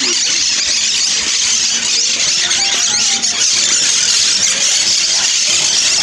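A flock of monk parakeets (quaker parrots) in an aviary screeching and chattering together in a dense, continuous din.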